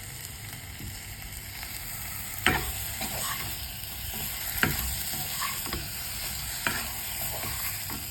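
Tomato chunks sizzling in hot oil and spices in a small wok while being stirred, with a steady frying hiss. A stirring utensil knocks sharply against the wok about three times, roughly every two seconds, with lighter scrapes between.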